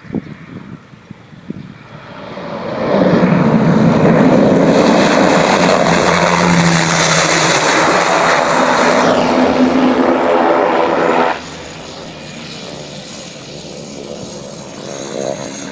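Aircraft engine noise, building loud about two seconds in, with a falling whine partway through. It drops off sharply about eleven seconds in to a quieter steady engine drone.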